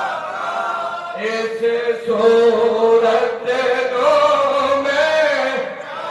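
Male voice singing a Punjabi devotional naat through a microphone and PA, drawing out long held notes.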